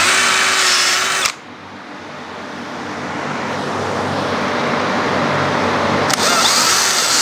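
Cordless drill boring 1/4-inch drain holes through the bottom rail of a composite railing kit. One high-pitched run of drilling cuts off about a second in, and a second run starts about six seconds in.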